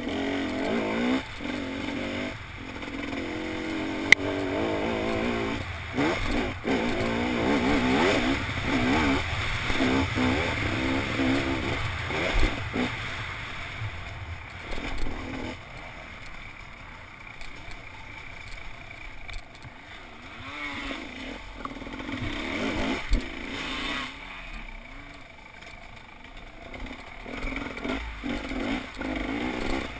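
Dirt bike engine revving up and down as it is ridden along a rough trail, heard from the rider's helmet, with a quieter, lower-revving stretch in the middle and a few sharp clacks.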